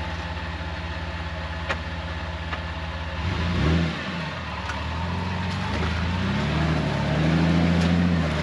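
A vehicle engine running low and steady, then revving up under load as it crawls up a rock obstacle. The revs rise briefly about three seconds in, then climb again and hold higher near the end.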